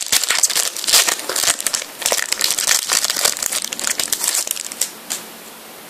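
Foil sachet of Panini FIFA 365 trading cards crinkling as hands handle and open it; the crackling stops about five seconds in.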